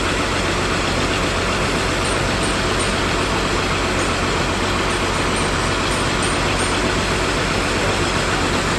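Bus engine idling steadily, an even low running sound with no change in pitch or level.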